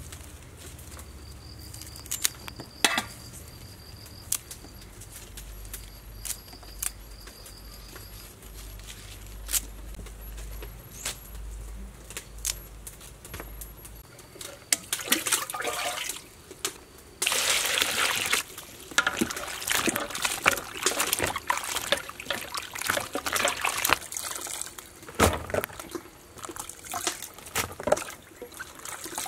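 Hands washing mushrooms in a basin of water: irregular splashing and sloshing in the second half, with about two seconds of steady rushing water a little past the middle. The first half is quieter, with a low hum and a few sharp clicks.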